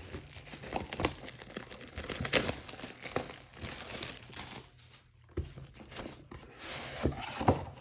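Plastic shrink wrap crinkling and tearing as it is pulled off a trading-card Elite Trainer Box, in a run of short, sharp crackles with a brief lull around the middle.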